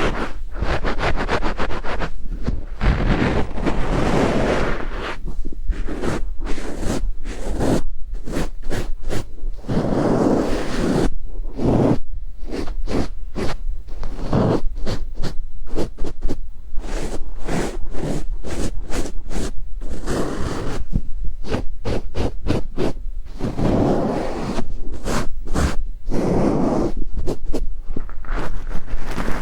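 Ear-cleaning tools scraping and brushing close against the microphone in quick repeated strokes, with a few short pauses, as in an ASMR ear-cleaning session.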